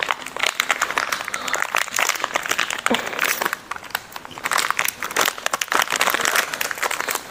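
Biscuit packet wrapper crinkling and crackling as it is opened and handled by hand.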